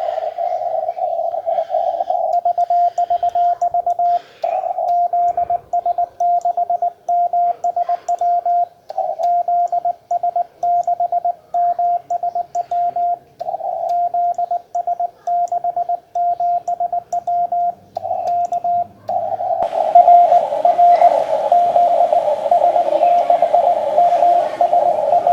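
Ham radio Morse code (CW): a steady tone of about 700 Hz keyed on and off in dots and dashes. About twenty seconds in, a hiss comes up behind the tone.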